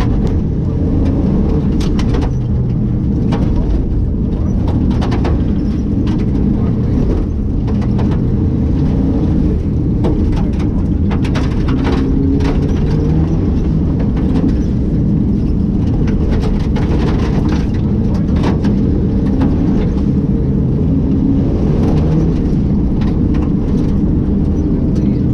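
Rally car's engine running hard at speed, revs rising and falling, heard from inside the stripped cabin, with stones and gravel clattering against the underside in sharp ticks and knocks.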